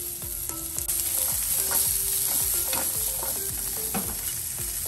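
Onion, capsicum and peas sizzling in hot oil in a nonstick frying pan while being stirred, with irregular scrapes and taps of the utensil against the pan.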